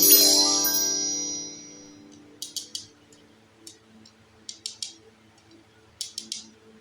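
A bright ringing clink with many overtones, fading away over about two seconds, followed by several short, crisp crackles in small clusters.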